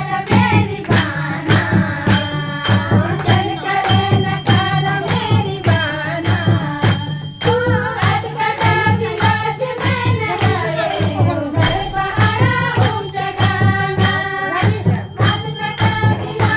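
Kumaoni Holi folk song: singing over a steady percussion beat of about two strokes a second, with deep drum thumps.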